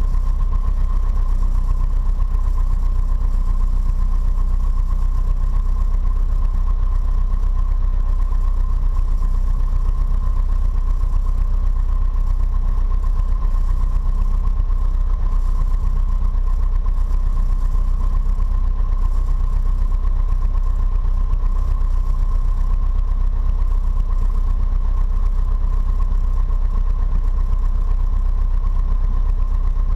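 Piper PA-28-140 Cherokee's four-cylinder Lycoming engine and propeller running steadily at low taxi power, heard from inside the cabin as an even low rumble with a thin steady whine above it.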